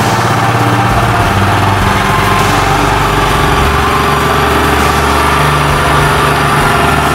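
Motorcycle engine running steadily as it drives a water pump through a shaft coupling.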